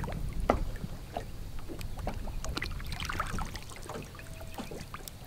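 Water splashing and dripping at the side of a bass boat as a hooked bass is lifted from the water, over a steady low rumble of wind on the microphone, with scattered small clicks and knocks.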